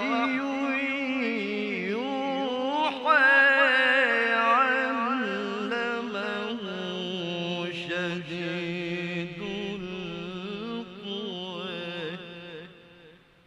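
A male qari's voice in melodic Quran recitation (tilawah), drawing out one long ornamented phrase with wavering pitch turns. It gets louder about three seconds in and trails off near the end.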